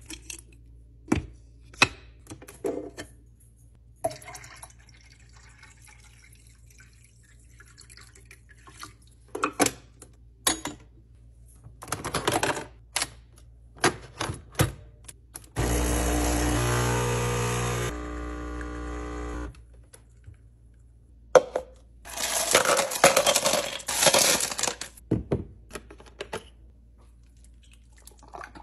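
Clicks and clinks of Nespresso capsules being handled and the machine's lever being worked, then the Nespresso capsule machine's pump running steadily for about four seconds, its hum dropping a step partway through as it brews. A few seconds later comes a burst of noisy clattering.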